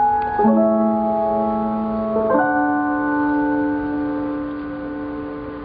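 Keyboard playing the closing chords of a slow ballad: three held chords, changing about half a second in and again past two seconds, the last one sustained and slowly fading away.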